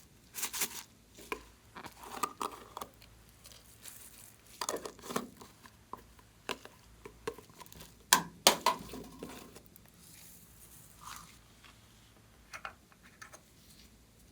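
Slime being handled and mixed by hand: irregular sticky clicks, pops and crinkly crackles with short quiet gaps, the loudest two pops coming a little past the middle.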